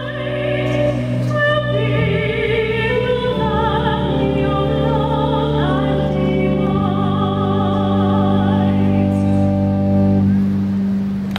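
A woman singing solo in long held notes with vibrato, over sustained low instrumental chords that change every few seconds. The music stops about a second before the end.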